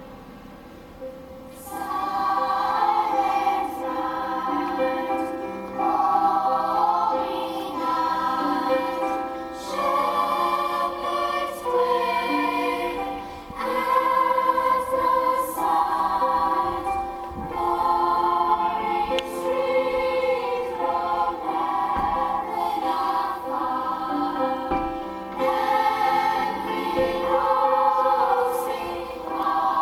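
A choir singing a slow carol in long held notes and phrases, coming in strongly about two seconds in over quieter music.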